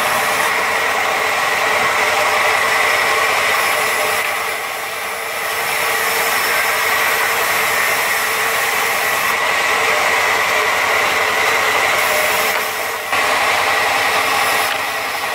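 Large sawmill band saw running steadily while it cuts through a log: a loud, continuous noise with a constant high whine. It eases briefly about four to five seconds in.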